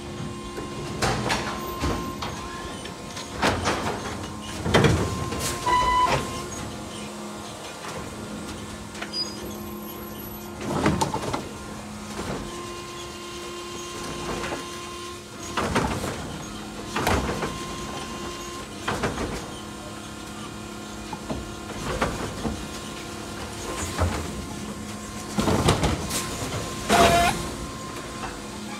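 Electric Mack LR garbage truck with a New Way Sidewinder automated side loader at work: a steady whine from its electric motors and hydraulic pump, broken by about a dozen clanks and bangs, the loudest about five seconds in and just before the end.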